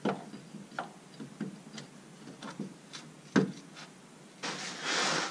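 Jeep Wrangler YJ driveshaft being handled and fitted back into place: a series of light metallic clicks and knocks, the loudest about three and a half seconds in, then a rustling scrape near the end.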